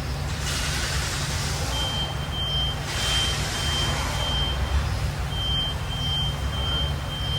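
A high, steady electronic warning tone sounds in long stretches broken by short gaps, over a low steady rumble with a few bursts of hiss.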